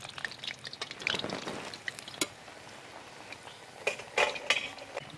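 Urad-dal fritter deep-frying in hot oil, sizzling steadily, with a few sharp clinks of a metal utensil against the pan, one about two seconds in and several near the end.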